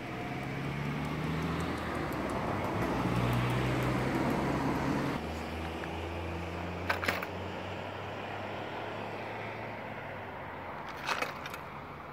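Road traffic: a passing vehicle's noise swells over the first few seconds and drops off about five seconds in, over a low engine hum. Two short sharp clicks follow, about seven and eleven seconds in.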